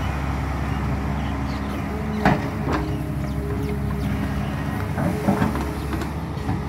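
LiuGong hydraulic excavator's diesel engine running steadily as the arm swings and the bucket dumps a load of soil. Two sharp metallic knocks come a little over two seconds in, and a few lighter ones come a second or so before the end.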